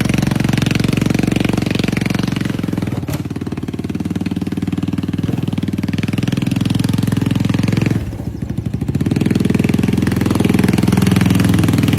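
Jeep engine running as the vehicle drives, a steady rapid low rumble that eases off briefly about eight seconds in and then picks up again.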